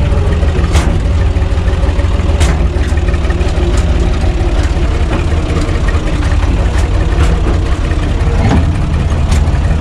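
UTB U445 tractor's diesel engine running steadily as the tractor is driven, heard from inside its cab as a loud low hum. A few sharp clicks cut through it now and then.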